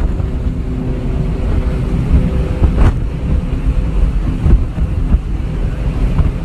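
Jet boat's engine running steadily under way, a constant drone over heavy low rumble, with wind buffeting the microphone. A short sharp hit comes about three seconds in.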